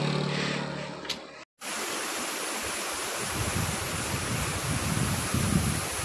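A motorbike engine hum fading away, then, after a brief dropout, the steady rushing of a waterfall.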